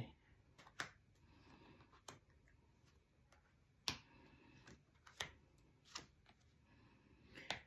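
Tarot cards being drawn off the deck and laid down one by one on the table: a few sharp card clicks a second or so apart, with near silence between them.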